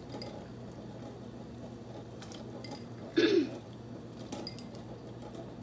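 Soft squelching and faint clinks as sliced sour bamboo shoots are dropped by hand from a bowl into a pot of broth, with one short louder sound about three seconds in.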